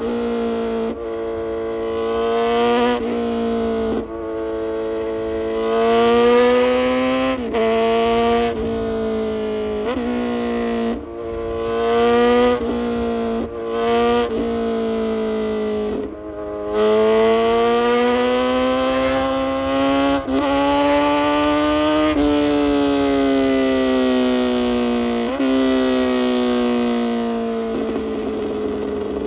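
Kawasaki Z900 inline-four with an aftermarket full exhaust under hard acceleration: the engine note climbs in pitch, dips briefly at each upshift, and climbs again, several times over. In the last third the note falls away steadily as the bike slows.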